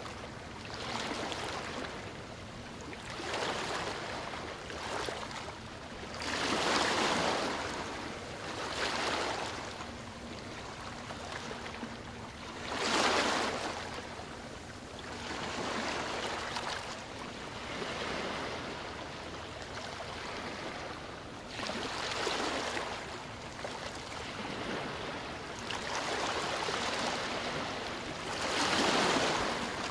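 River water washing against the bank in repeated swells of splashing noise, one every two to three seconds, with a faint steady hum underneath.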